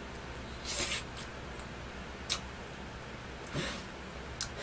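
Close-miked mouth sounds of someone biting and chewing a slice of hot pizza: two short hissy bursts, about a second in and again around three and a half seconds in, with a sharp click between them.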